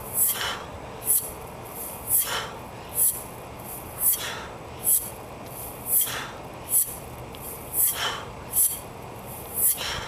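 A training mace swung in continuous rotations, cutting the air with a whoosh that falls in pitch. The whooshes come twice per rotation, in pairs about every two seconds.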